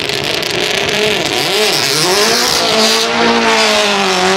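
Lancia Delta S4 rally car's twin-charged four-cylinder engine accelerating away from the start line, its note rising and dipping several times before holding steadier near the end.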